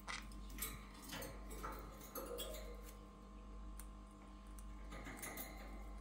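Scattered light clicks and taps of Pyrrhura conures' claws and beaks on the wire bars of their cage as they climb about, over a steady faint hum.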